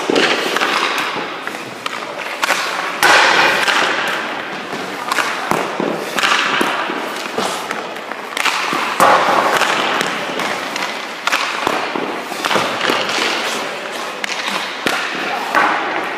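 Ice hockey goalie drill on rink ice: skate blades scraping across the ice about every three seconds as the goalie pushes and slides, among sharp cracks and thuds of pucks being shot and striking sticks, pads and the boards.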